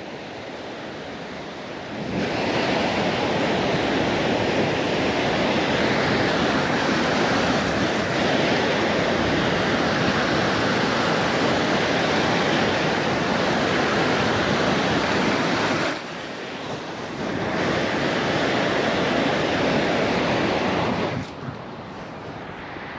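Ocean surf washing at the water's edge, with wind noise on the microphone. It swells loud about two seconds in, drops briefly about two-thirds of the way through, then swells again before falling off near the end.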